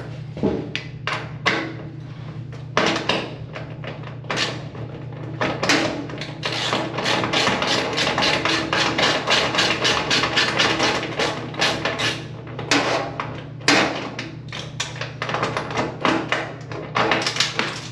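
Rapid, repeated sharp metal knocks, several a second, as the stubborn fastener of an Electrolux dryer's drum support roller is worked loose with an Allen wrench. A steady low hum runs underneath.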